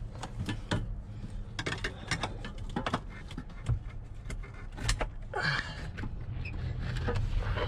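Hand-work noises on a truck: metal parts knocking, clicking and scraping as a brake booster assembly and its brackets are handled and worked into position, with a short rough scrape about five and a half seconds in.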